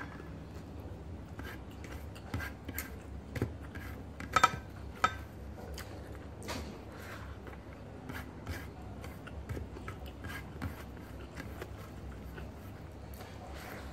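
Fingers scraping and pinching rice off a ceramic plate, eating by hand: scattered light scrapes and clicks, with a few sharper ones about four and five seconds in.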